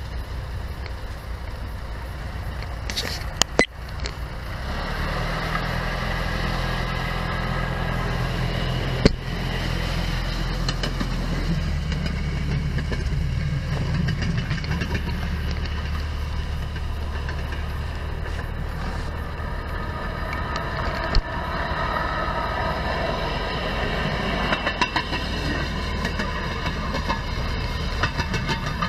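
Railroad speeders' small engines running as the cars travel along the rails, a steady engine drone that grows louder about five seconds in, with a few sharp clicks.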